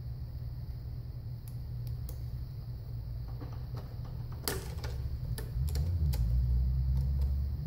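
Snap-ring pliers and a steel lock ring clicking against the torus shaft of a Hydra-Matic transmission as the ring is worked into place: a few sharp, irregular metallic clicks, the loudest about halfway through. A steady low hum runs underneath and grows louder near the end.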